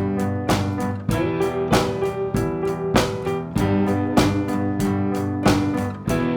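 Instrumental music: guitar over a drum beat, with held chords.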